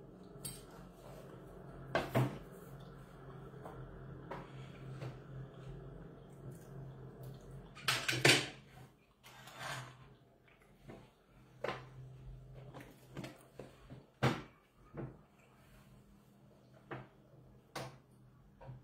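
Scattered clinks and knocks of cutlery and dishes at a meal table, the loudest about two seconds in and around eight seconds in, over a faint steady low hum.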